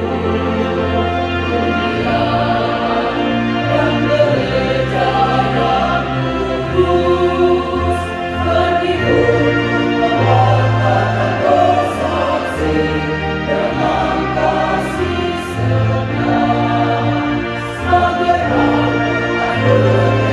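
Mixed choir singing a hymn-march in parts, over long held low notes.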